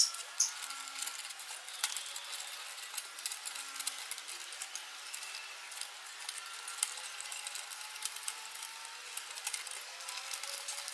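Metal wire spirals being threaded together by hand into a chain-link mesh, clicking, ticking and scraping against each other and against a plywood bench. The clicks are light and irregular, with a few sharper ones.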